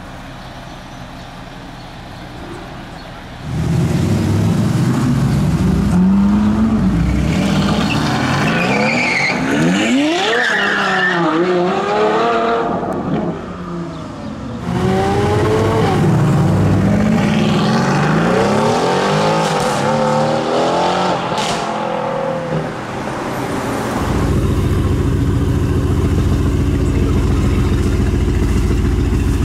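Mercedes-AMG GT R's twin-turbo V8 with Renntech downpipes. It idles, then is revved and accelerated several times, its pitch rising and falling, and runs at a steady, deep idle for the last few seconds.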